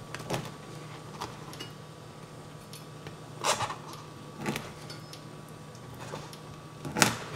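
Chef's knife cutting slices of bread into strips on a wooden cutting board: a few scattered crunches of the crust and taps of the blade on the board, the loudest just before the end, over a low steady hum.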